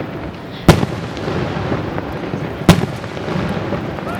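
Fireworks display: two loud shell bursts about two seconds apart, over a continuous din of smaller bangs and crackle.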